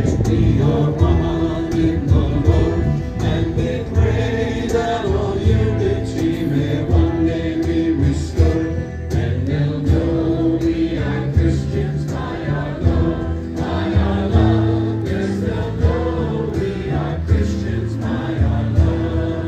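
Worship band performing a song: voices singing together over instruments with a steady bass line.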